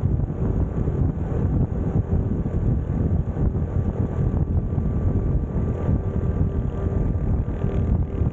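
Wind buffeting the microphone on a moving motorcycle, over a Honda CT125's air-cooled 125 cc single-cylinder engine running steadily at cruising speed.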